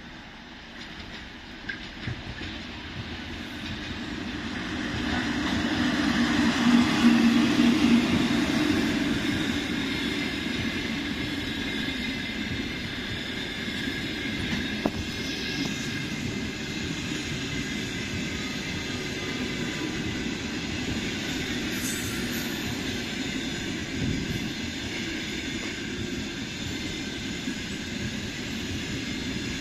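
An EP2K electric passenger locomotive approaches and passes close by, loudest about six to eight seconds in. It is followed by the steady noise of its passenger coaches' wheels running past on the rails.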